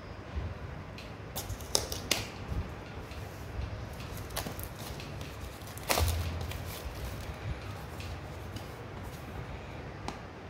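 Clear plastic shrink wrap being peeled off a small cardboard smartwatch box: scattered crinkles and sharp clicks of plastic and cardboard handling, with a louder knock about six seconds in.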